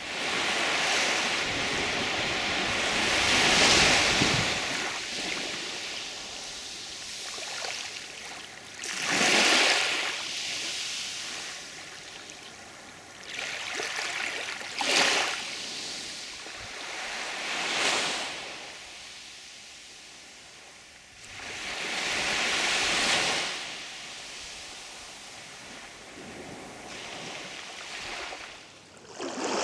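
Sea waves breaking and washing in, a rushing that swells and fades again every few seconds.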